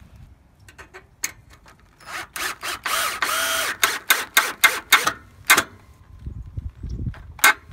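Ryobi cordless drill-driver driving a 3-inch screw into a wooden 2x4 post: the motor runs for about a second, then a string of sharp clicks follows, about five a second, with a couple more clicks near the end.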